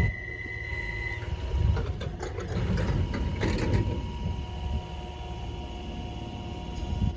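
Train on the line at the station: a low rumble with rhythmic mechanical clattering, and a steady high tone that stops about a second in.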